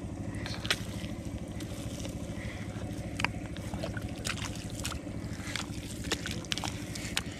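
Hands squelching and digging through thick wet mud, with sharp wet clicks scattered throughout, over a steady low machine drone.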